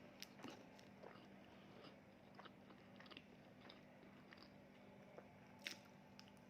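Faint eating sounds: scattered small clicks and crunches of food being bitten and chewed, a little louder near the end, over a steady low hum.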